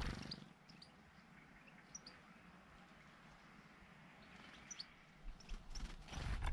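Small songbirds giving a few brief, high chirps here and there, over faint outdoor background noise. A louder rushing noise with a low rumble comes near the end.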